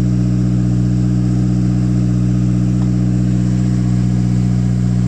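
Toyota Starlet EP82's four-cylinder engine idling steadily.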